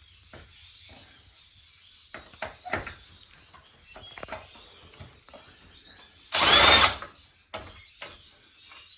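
Cordless electric screwdriver running in one short burst of about a second, driving out a screw from the back panel of a flat-screen TV. Light clicks and knocks from handling the screws and the plastic panel come before it.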